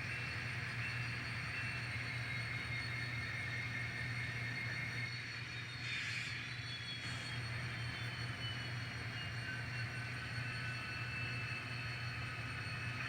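N scale model locomotive running: a steady low hum with a high whine that slowly falls in pitch.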